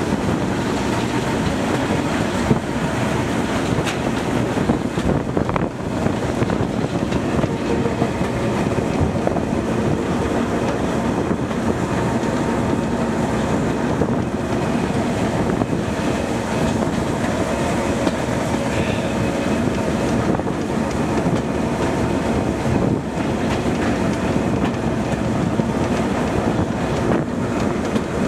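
Class 09 diesel shunter under way, its English Electric six-cylinder diesel engine running steadily along with the rumble of wheels on the rails.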